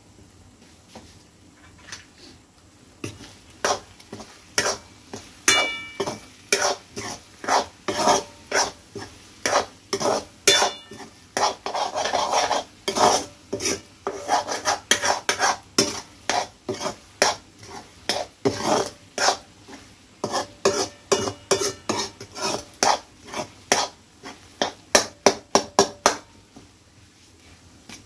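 A metal spoon scraping and stirring scrambled eggs in a steel kadai: quick repeated strokes, about two a second, with the pan ringing now and then. The stirring starts about three seconds in and stops shortly before the end.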